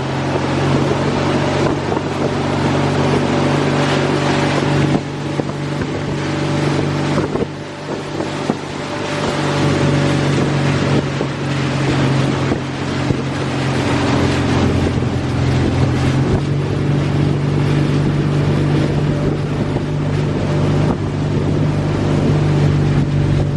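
A motor vehicle's engine drones steadily, with wind and road or water noise over it. The level eases off briefly about a third of the way through.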